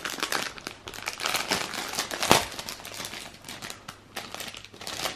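Clear plastic packaging crinkling and crackling as a pouch is handled and opened, with one sharper crackle a little over two seconds in.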